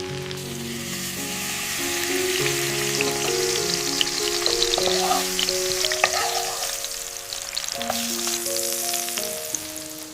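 Food frying in a hot pan, a dense sizzle with fine crackles that swells after the first second and fades near the end. A gentle melody of held notes plays underneath.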